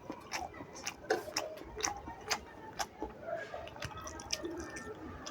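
Close-up wet eating sounds of a person chewing and smacking on a mouthful of rice and fish curry: a run of irregular sharp wet clicks and smacks.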